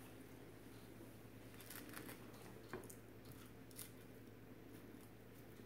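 Faint scraping of a table knife spreading mashed avocado onto toast: a few soft, short scrapes with a light tick in between.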